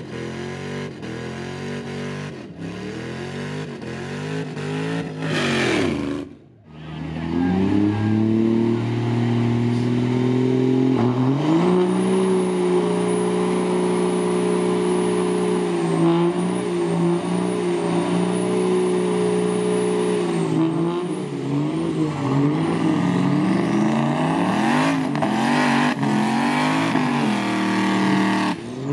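Car and truck engines revving hard during burnouts, with tyres spinning on pavement. After a short break about six seconds in, one engine climbs and is held at steady high revs for about eight seconds under a high tyre squeal. Near the end its revs swing up and down again and again.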